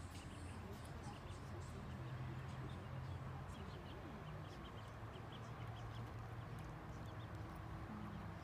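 Mallard ducklings peeping: many short, high peeps scattered all through, over a steady low hum.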